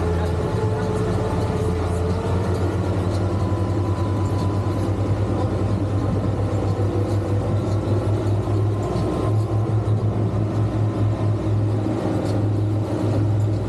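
Twin Suzuki 200 hp outboard motors running steadily with the boat under way, a constant low hum over the rush of the churning wake.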